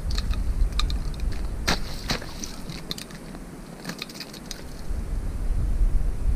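Wind rumbling on the microphone, easing off for a moment mid-way, with scattered light clicks and rattles of handling.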